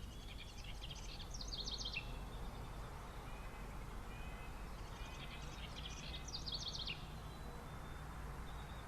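A songbird singing two phrases about five seconds apart, each a quick run of rapid high notes lasting about two seconds and ending on a lower note, over a steady low background rumble.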